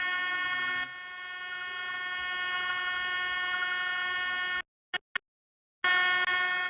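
Loud, constant horn-like tone at one steady pitch with many overtones, heard over a phone line. It cuts out about two-thirds of the way through apart from two brief blips, then comes back near the end.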